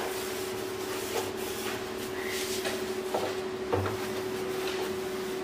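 Dry cotton cloth rubbing over the glass top and steel burner plates of a gas stove, with a few light knocks as the hand and cloth move around the burners, over a steady hum.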